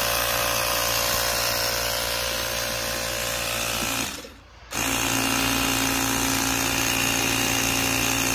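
Ryobi 18V cordless tire inflator running with a steady mechanical drone as it pumps air into a bucket-and-PVC aircrete foam generator. The sound drops out for about half a second near the middle, then carries on.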